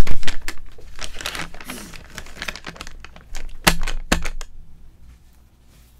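A quick run of clicks and rustling handling noise, with two sharper knocks near the end, then it dies away about four and a half seconds in.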